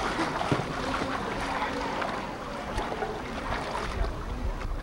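Pool water splashing from a small child swimming on her back, with kicking feet and arm strokes churning the surface, over a steady rushing hiss.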